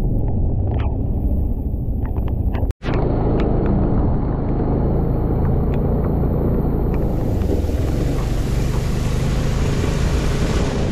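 Riding noise from a Suzuki Burgman 400 scooter on rain-soaked roads: a loud, steady low rumble of wind and road noise. It cuts out for a moment about three seconds in, and a higher hiss comes in about seven seconds in and holds.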